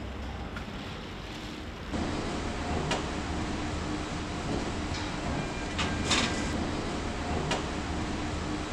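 Car assembly plant noise: a steady machine hum with scattered sharp clicks and clanks, the loudest about six seconds in. The sound steps up louder about two seconds in.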